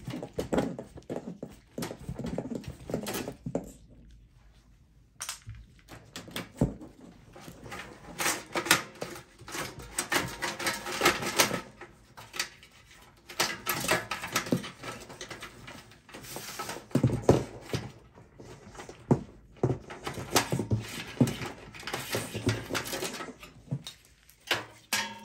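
Hands working in the steel chassis of a Dell XPS 8910 desktop: irregular clicks, knocks, scrapes and rattles of metal parts, screws and cables being handled and pulled out.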